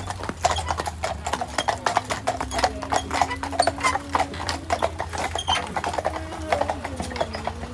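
A team of horses clip-clopping along a tarmac street as they pull a horse-drawn hearse. The hoof strikes come quickly and irregularly, with many hooves overlapping.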